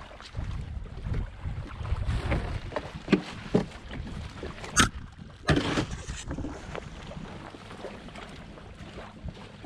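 Wind buffeting the microphone and water slapping against a kayak hull, with a few knocks and two sharper clatters about five seconds in.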